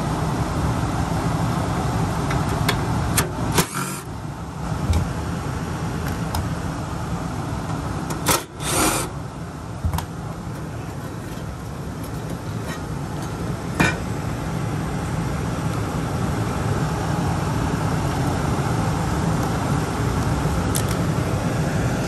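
Electric furnace's blower running steadily with the heat strips on, broken by several sharp metal clicks and knocks as the cover plate and tools are handled.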